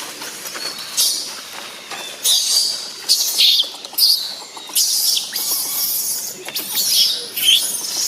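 Baby monkey crying in repeated short, high-pitched squeals, some of them falling in pitch.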